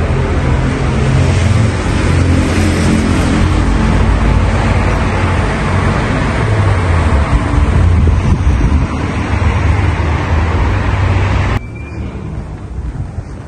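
Steady street traffic noise, a loud low rumble of passing vehicles. Near the end it drops suddenly to a much quieter hush.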